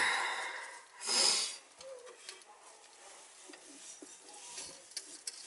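Cloth rustling and rubbing as a gloved hand wipes with a rag under the sink. Two louder bursts of rubbing in the first second and a half, then quieter scuffing.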